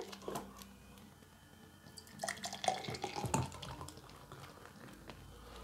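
Faint clicks, knocks and rustling from a plastic bottle of grape soda and a drinking glass being handled, with a little liquid sound.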